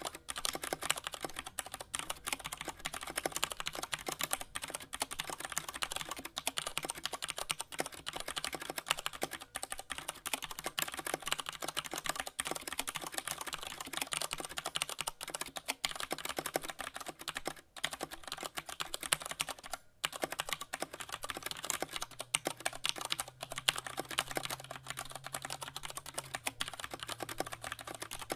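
Continuous fast typing on a mechanical keyboard fitted with Tai Hao doubleshot PBT keycaps: a dense run of key clacks, with two brief pauses past the middle.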